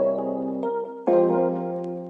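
Background music: sustained piano or electric piano chords, with a new chord struck about a second in.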